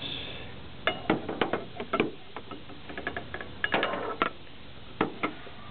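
Irregular clicks and knocks of a vacuum gauge and its rubber hose being handled and moved about in a car's engine bay, with the engine off.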